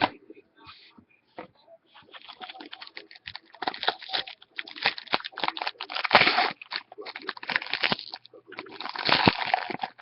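Trading-card packs and cards being handled: dense, irregular crinkling and rustling that begins about two seconds in and grows louder.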